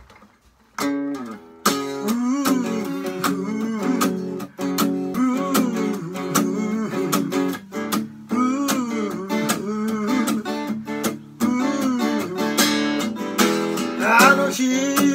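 Acoustic guitar strummed solo, playing the intro of a rock song. Rhythmic chord strikes start about a second in, with a figure that repeats about every one and a half seconds.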